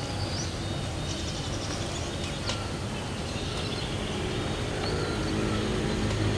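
Steady outdoor background noise with a few faint high chirps and a single sharp click. A low steady hum comes in about five seconds in.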